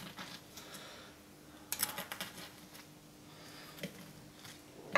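Knife and fork cutting through the crisp top of a stack of air-fried waffles: a faint cluster of crunchy crackles about two seconds in, then a few light ticks near the end.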